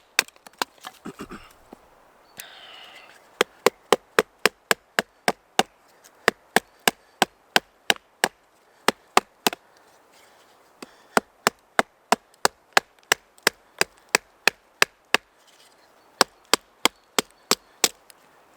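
A folding knife being lightly batoned through a small stick: a rapid run of sharp taps of a baton on the blade's spine, about three or four a second, broken by a couple of short pauses.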